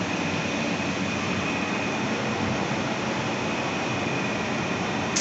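Steady, even machinery noise with a thin constant high whine running through it.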